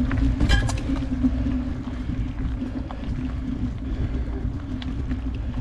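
Wind buffeting the microphone while moving along a trail: a steady low rumble with a constant low hum under it, and a few sharp clicks about half a second in.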